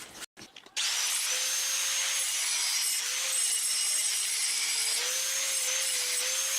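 Angle grinder cutting into the steel of a broken machete blade to make a groove for weld, starting about a second in and running steadily, its motor note wavering slightly as the disc is loaded.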